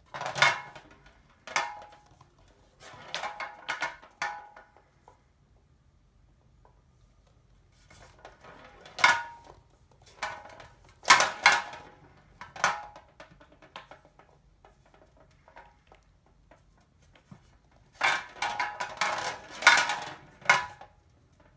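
Billiard balls rolling and clattering against each other and the rim of a metal tray as a kitten bats them, in bursts of one to two seconds with quiet pauses between.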